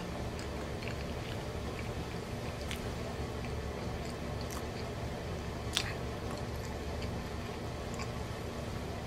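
A person chewing a mouthful of pizza with the mouth closed, close to the microphone, making scattered soft wet mouth clicks, one sharper than the rest a little before six seconds in, over a steady low hum.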